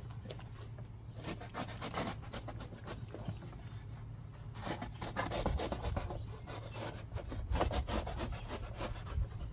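A knife cutting down through the corrugated cardboard of a shipping box: a run of rapid scraping, rasping strokes that gets heavier about halfway through.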